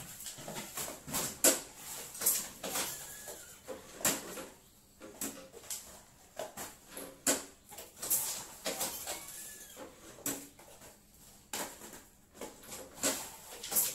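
Irregular crinkles and clacks of plastic popcorn packets being handled and worked through a small hand-operated sealing machine.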